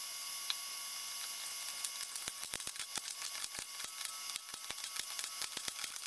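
Ratchet wrench clicking in quick, uneven runs, starting about a second and a half in, as the differential carrier bolts are run down.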